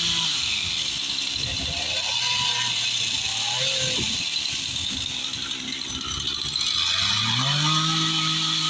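Chainsaw engine easing off from full throttle to a lower, uneven speed, then revving back up to a steady high speed about three quarters of the way through.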